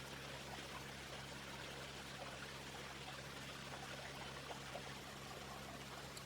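Faint, steady trickle of running water, with a low steady hum underneath.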